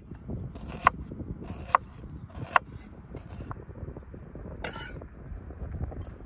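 Kitchen knife slicing an onion on a wooden cutting board: three sharp knocks about a second apart, each with a light metallic ping, then a short scrape of the blade as the slices are swept off.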